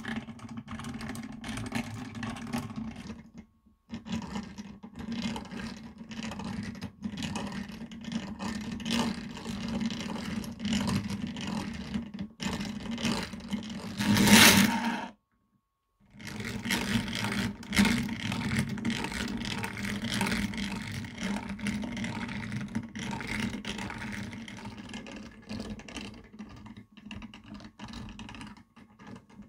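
Restored Dazey Sharpit hand-cranked knife sharpener being turned: its gears whir and the sharpening wheel spins, a steady low hum under a scraping rattle. The sound stops briefly twice, the second time right after its loudest moment about halfway through.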